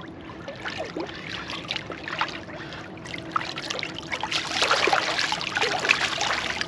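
Water splashing and sloshing around a large wels catfish held in shallow river water and released, the splashes getting louder from about four seconds in as the fish kicks away.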